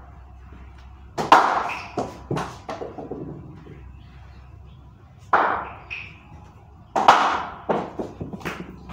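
Sharp knocks of a cricket ball against a wooden cricket bat and the hard tiled floor and walls. The loudest come about a second in, about five seconds in and about seven seconds in, each followed by several quicker, smaller knocks as the ball bounces.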